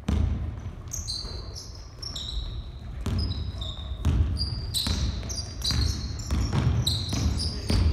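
A basketball bouncing and thudding on a hardwood gym floor, with many short high-pitched squeaks of sneakers on the boards as players cut and stop, in an echoing hall.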